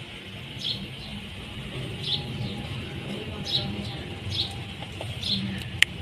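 Ringneck parrot giving five short, high chirps about a second apart, with one sharp click near the end.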